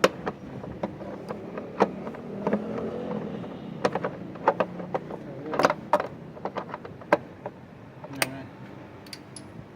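Irregular sharp metal clicks and clanks of hand tools and engine parts being handled, over a low steady hum.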